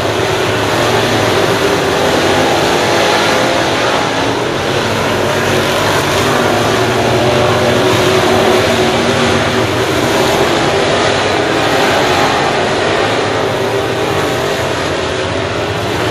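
A pack of dirt late model race cars running laps together, their V8 engines blending into one steady, loud sound.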